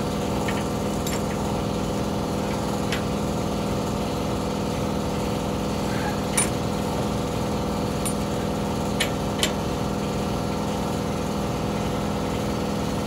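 A steady machine hum runs throughout, with a few short, sharp metallic clicks as a breaker bar and wrench turn the bolt of a bushing press tool.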